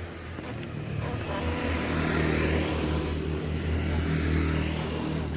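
A motor vehicle's engine hum that swells about a second in and eases off near the end, like a vehicle passing.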